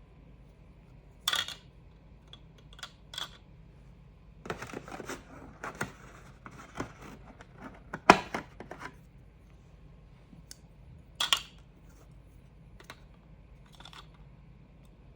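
Plastic parts and packaging being handled: a few sharp clicks and knocks, with a stretch of rustling and small clicks in the middle.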